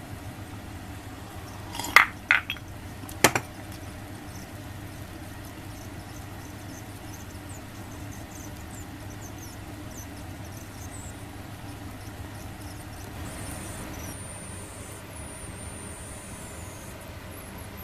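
Tableware clinking sharply a few times, about two to three and a half seconds in, over a steady low hum.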